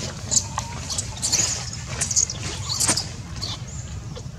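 Baby macaque giving a few short, high-pitched squeaks while clinging to its mother, over a steady low background rumble.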